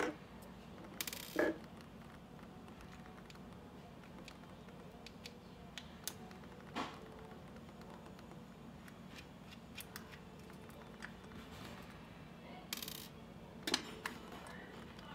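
Small clicks and scrapes of a precision screwdriver working the tiny screws in the end cap of a RODE shotgun microphone's body, with a few louder knocks as the parts are handled and set down.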